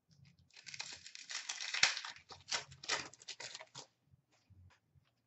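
Foil wrapper of an Upper Deck Series 1 hockey card pack being torn open and crinkled, a dense crackle lasting about three seconds, followed by a few faint ticks of cards being handled.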